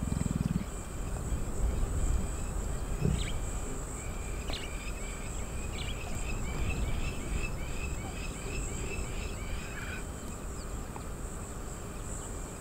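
Savanna ambience: a steady high insect drone, with a quick run of high chirps through the middle and a low rumble underneath. A lion's low grumble fades out in the first half-second.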